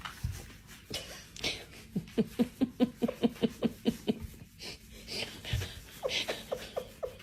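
An animal making a rapid string of short, wheezy, squeaky breaths or cries, about four a second, each dropping in pitch; a few more follow near the end.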